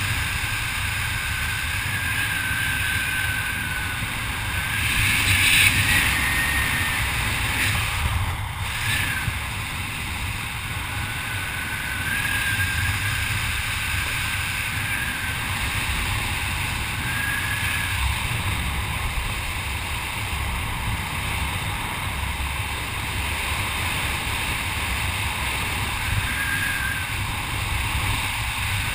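Wind rushing over a helmet camera's microphone while descending under an open parachute: a steady low rumble, with a faint wavering whistle that comes and goes and a brief louder gust about five seconds in.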